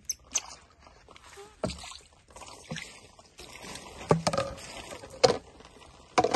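Plastic bowl and water dipper being handled, giving a string of irregular sharp knocks and clatters, with a little water sloshing.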